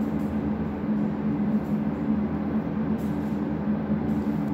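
Steady mechanical hum over a low rumble, holding two constant tones at an even level throughout.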